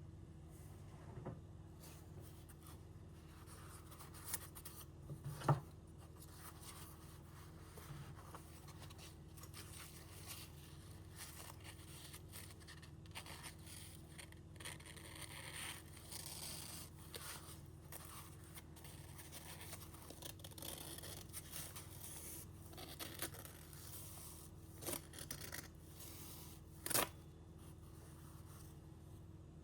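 Faint scraping and handling noises with a few sharp clicks, over a steady low hum.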